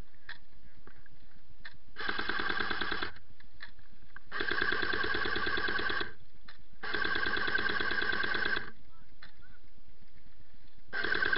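An airsoft electric M4 rifle (CYMA CM518) fires three full-auto bursts of about one to two seconds each, and a fourth burst starts near the end.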